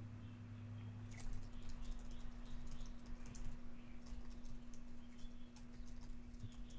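Typing on a computer keyboard: a run of quick keystrokes that starts about a second in and goes on until near the end.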